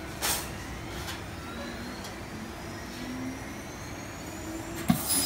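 Steady hum of a fiber laser cutting machine, with a brief hiss about a quarter of a second in and a faint rising whine. Near the end a loud hiss starts suddenly as the laser head starts cutting sheet metal.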